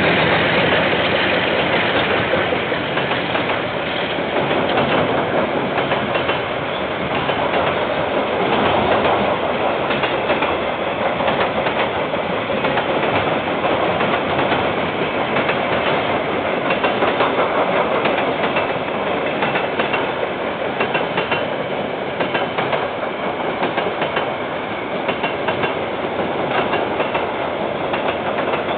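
KiwiRail freight train's wagons rolling past, steel wheels running on the rails in a steady, continuous rumble.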